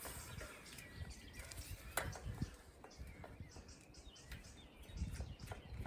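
Faint outdoor ambience: a few short bird chirps over a light low rumble, with scattered sharp clicks and taps, the loudest about two seconds in.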